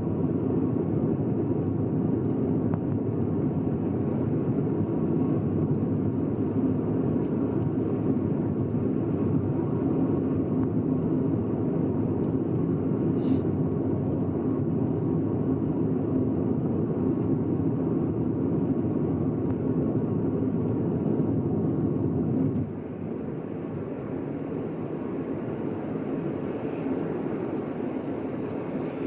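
Moving car heard from inside the cabin: steady road and engine rumble that drops suddenly to a lower level near the end. A single short tick about halfway through.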